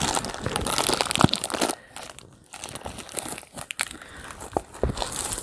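Packaging wrapper around a rolled diamond-painting canvas being crinkled and pulled open by hand. The crackling is loudest in the first second and a half, drops to scattered small crackles, and picks up again near the end.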